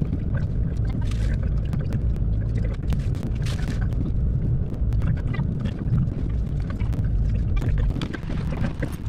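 Deep rumbling road and engine noise inside a moving car's cabin, picked up by a dashcam, with many scattered short clicks.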